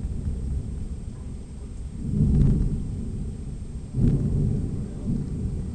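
Thunder rumbling continuously, with two louder low rolls swelling up about two and four seconds in.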